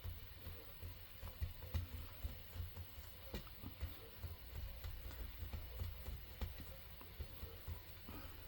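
Hands working a polymer clay cane on a desk to reduce it, giving faint, irregular soft thumps and a few light clicks.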